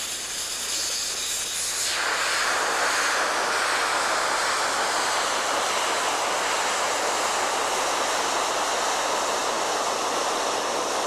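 Compressed air hissing steadily from a hand-held air hose nozzle whose jet holds a golf ball aloft. About two seconds in the hiss becomes louder and fuller.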